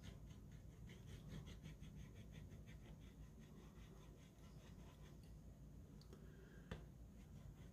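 Faint quick scratching strokes, about five or six a second, of a pointed tool rubbing a peel-off decal down onto a model boxcar; the strokes die away after a few seconds, and there is one light click later on.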